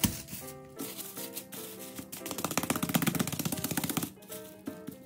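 Background music, with a fast rattling run of taps from about two seconds in, lasting about two seconds: gloved hands slapping and kneading sticky chocolate rice-flour dough on plastic wrap over a wooden board.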